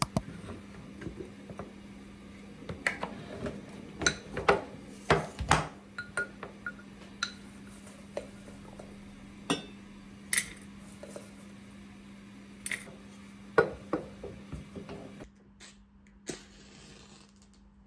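Glass clinking and light clattering as dried chamomile flowers are spooned from a glass jar into a glass teapot: a string of separate sharp clinks. Near the end a lighter gives a short hiss of about a second as the tealight under the teapot warmer is lit.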